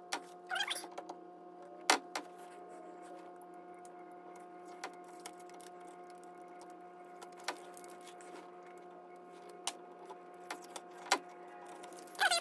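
A steady low hum of several fixed pitches, with a few sharp clicks and taps scattered through, the loudest about two seconds in and near the end.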